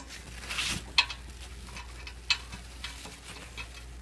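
Faint rustling of gloved hands handling a ratcheting wrench and a thread chaser at an exhaust flange, with a few light irregular metal clicks, the sharpest about a second in, over a low steady hum.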